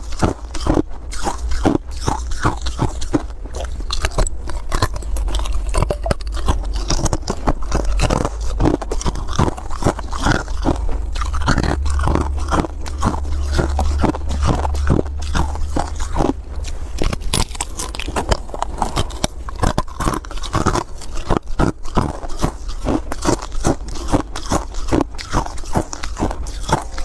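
Someone biting and chewing chunks of frost-covered ice: dense, crisp crunches one after another, with a steady low rumble underneath.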